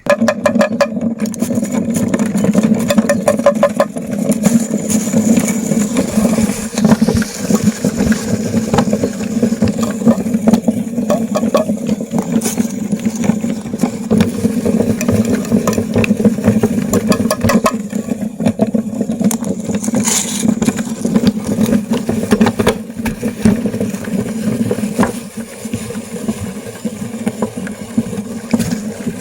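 Electric meat grinder running with a steady motor hum while mini ice cream cones are crushed in it, with dense crackling and crunching throughout.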